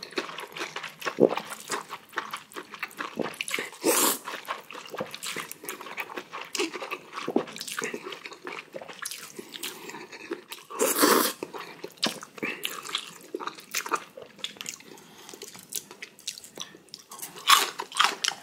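A person slurping and chewing chewy naengmyeon (Korean cold noodles) close to the microphone, with irregular wet mouth sounds throughout and a few louder slurps, the loudest about 11 seconds in.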